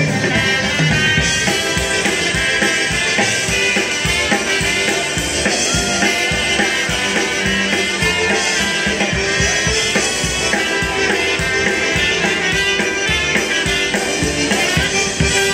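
Polka band playing live, with a steady drum-kit beat under the other instruments.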